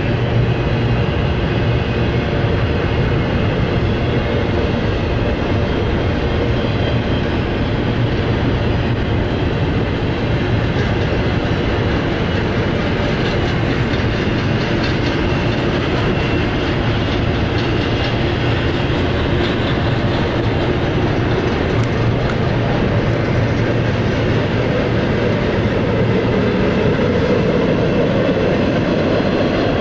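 Union Pacific double-stack container train's cars rolling past: a steady, loud rumble of steel wheels on rail.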